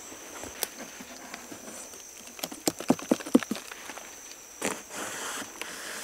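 Footsteps crunching through leaf litter on the forest floor, with a quick run of loud steps about halfway through and a few more near the end.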